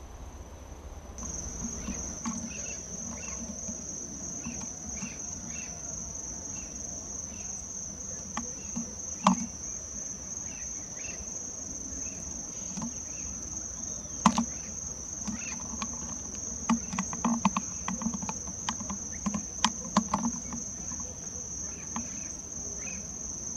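Steady high-pitched insect drone that starts about a second in, with scattered sharp clicks and knocks over it, the loudest about nine and fourteen seconds in and a run of them later on.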